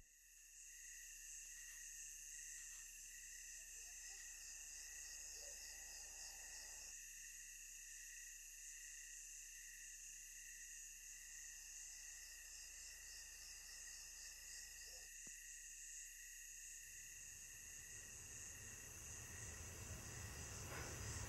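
Faint crickets chirping steadily, a thin high trill over near silence.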